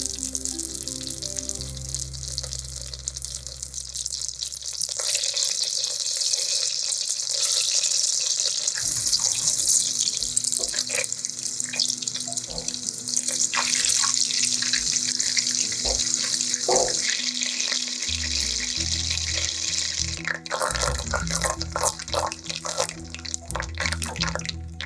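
Butter sizzling in a stainless steel saucepan as it is browned, a steady high hiss as its water boils off. About twenty seconds in the hiss gives way to scattered crackling and popping as the butter foams and starts to brown.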